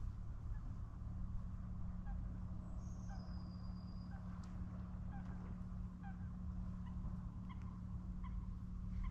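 Waterbirds on the lake calling: short calls repeated roughly once a second, with a brief high whistle about three seconds in, over a steady low rumble.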